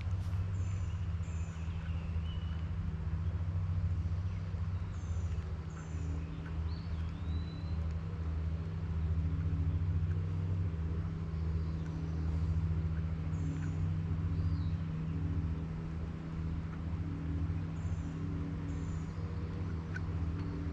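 A steady low mechanical hum, with small birds chirping over it: pairs of short, high, falling chirps repeating every few seconds, and a few lower whistled calls between them.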